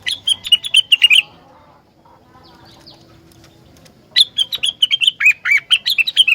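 Rengganis songbird singing two bursts of rapid, sharp chirping notes: a short phrase at the start and a longer one beginning about four seconds in.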